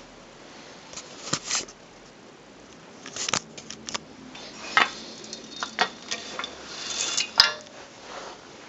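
Metal parts of a motorcycle paddock stand clinking and knocking as it is handled, about a dozen separate sharp knocks, with a louder clink near the end that rings briefly.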